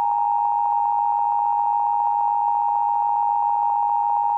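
Emergency Alert System attention signal: two steady tones close together in pitch (853 and 960 Hz) sounded at once and held unbroken. It is the alarm that announces an emergency alert message.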